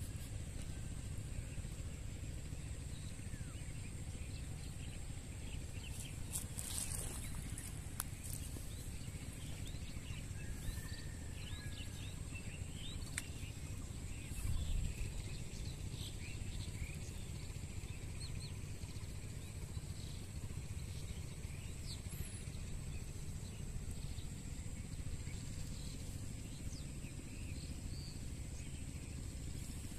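Rural outdoor ambience by a pond: a steady low rumble and a steady high whine, with faint scattered bird chirps and a short low thud about halfway through.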